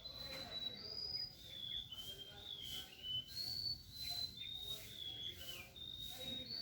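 Several small birds at a tree calling, a steady overlapping chatter of short, high, slightly falling whistled chirps.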